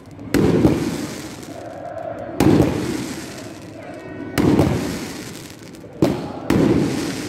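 Aerial fireworks bursting overhead: five loud bangs, about two seconds apart with the last two close together, each trailing off in a long rumbling echo.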